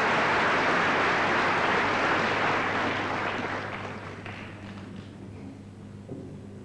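Audience applause, dense and steady, dying away about four seconds in and leaving a faint low hum.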